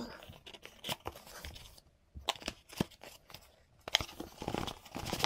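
Cardboard gimbal box handled and opened: irregular rustling, scraping and light knocks of cardboard against cardboard and fingers as the lid comes off.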